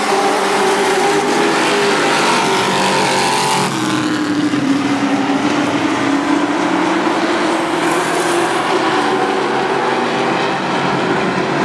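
A field of race trucks running at speed on a short oval, several engines sounding together at once. The main engine note drops about four seconds in, then slowly climbs again.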